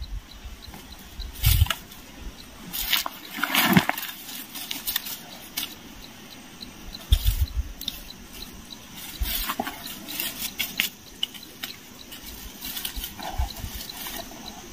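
Hands scraping dry soil and rustling dry leaves and brush while setting a bird trap on the ground, in irregular short bursts, with scattered low thumps.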